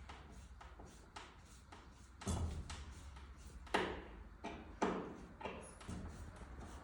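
Small clicks and taps of brass screws and lamp fittings being handled and screwed in by hand, with a few louder knocks about two, four and five seconds in.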